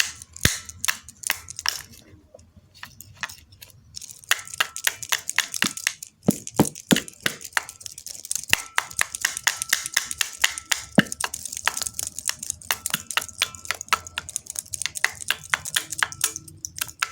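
Rapid, irregular clicking and rattling of small hard objects being handled and worked by hand, with a brief lull about two seconds in and a faint high steady tone coming and going.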